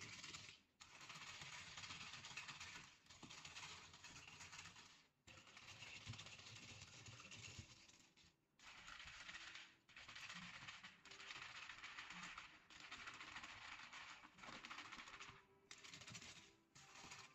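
Ice rattling and clinking as a long metal spoon stirs iced passion-fruit drinks in plastic cups. The stirring comes in bursts of one to two seconds with short breaks between them.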